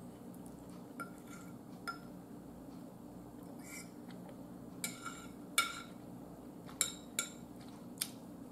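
A metal fork clinking and tapping against a dinner plate as food is picked up: about seven light, sharp clinks at uneven intervals, over a faint low hum.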